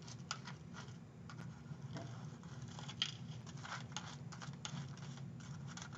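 Faint scattered crackling and small clicks of dry clay crumbs being crushed and handled, with one slightly louder click about three seconds in.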